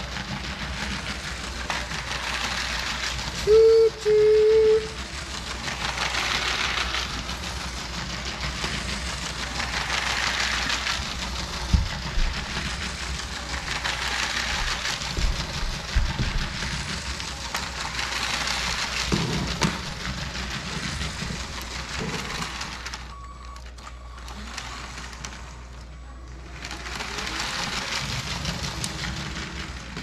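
LEGO Power Functions remote-control passenger train (set 60051) running round a small loop of plastic track. Its motor and wheels swell and fade about every four seconds as it passes close by each lap. Two short tones about four seconds in are the loudest sound, and there are a few knocks.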